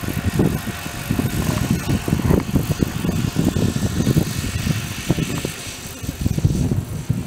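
Wind buffeting the microphone in an irregular, gusty rumble. Underneath is a faint steady whine from a distant radio-controlled competition helicopter in flight.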